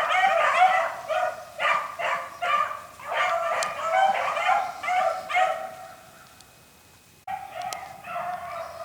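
A pack of beagles baying in a run of repeated, overlapping calls as they trail a rabbit, the sign that the hounds are on the scent. The calls fade to near silence about two-thirds of the way through, then break back in fainter.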